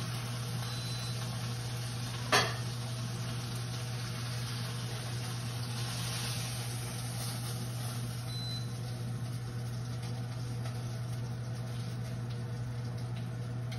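Beef browning in butter and oil, sizzling in a hot pot on the stove over a steady low hum, with one sharp clink about two seconds in.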